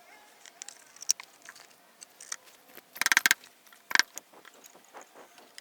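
Small clicks and handling noises of small parts being worked by hand, with a short, rapid rattle about three seconds in and a sharp click a second later.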